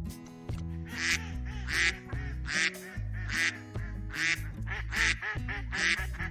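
Duck quacking repeatedly, a string of short calls about one every three-quarters of a second starting about a second in, over steady background music.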